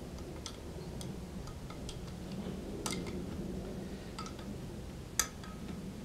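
Light metal clicks and clinks of a hand wrench on the bushing screws of a large multi-groove V-belt pulley as it is drawn tight onto the shaft, at uneven intervals, with one sharper clink about five seconds in. A faint steady low hum runs underneath.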